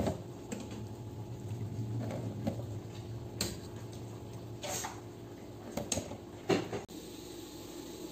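Kitchen tongs clicking and chunks of boiled beef lung being dropped into a plastic basin of water: a few scattered knocks and plops, the sharpest at the very start, over a low steady hum that stops near the end.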